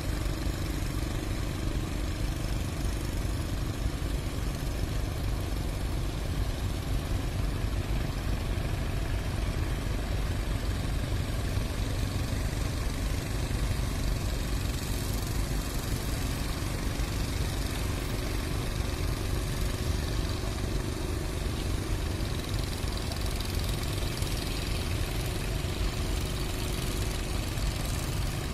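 A steady low rumble of surf, with the faint steady drone of a fishing boat's engine over it.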